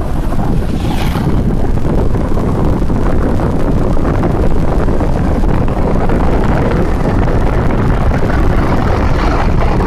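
Steady loud roar of a waterfall's rushing water, heavy in the low range, likely mixed with wind buffeting the microphone.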